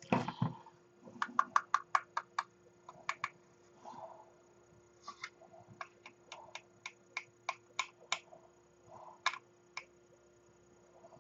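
A louder knock, then a series of sharp light clicks and taps, some in quick runs of about five a second and others single, from small tools and plastic kit parts being handled during a scale-model build.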